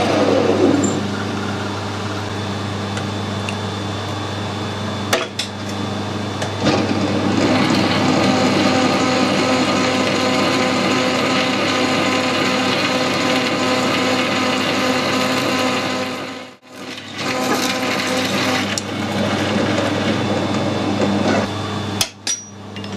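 Metal lathe running with a steady hum while a twist drill in the tailstock bores into the end of a threaded bar turning in the chuck. The sound drops out briefly about two-thirds of the way through, then the lathe stops shortly before the end.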